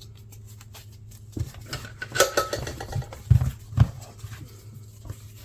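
Hands working leather pieces on a workbench: scattered rustling and small clicks, with two dull thumps a little past halfway, over a steady low hum.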